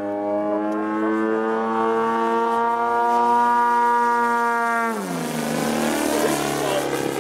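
Engine and propeller of a 37% scale Ultimate RC aerobatic plane in flight. The note climbs slowly, then drops sharply about five seconds in.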